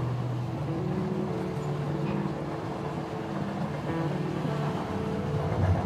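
Background music: slow held chords that change every second or two, over a steady hissing wash.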